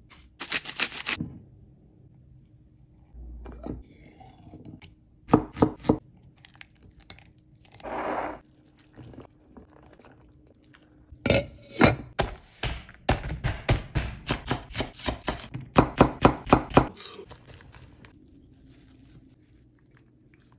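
Kitchen prep sounds: a spoon scooping thick Korean chilli paste (gochujang) from a tub, a few clicks, then from about eleven seconds in a run of quick, even knife chops on a cutting board, about four a second, which are the loudest sounds.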